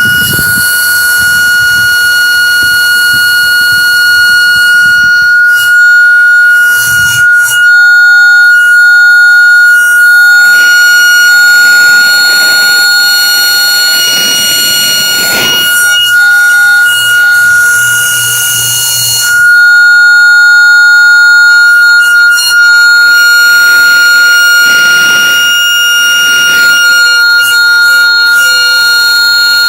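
Homemade air horn, with a mylar diaphragm over a stem in a plastic pipe and a loudspeaker horn bell, sounding a loud, steady high tone on compressed air. A second, lower tone comes and goes and changes pitch, with some air hiss.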